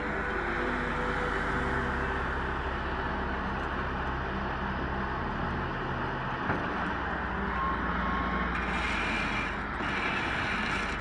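A heavy machine's engine running steadily, with a dense mechanical rumble and low droning tones.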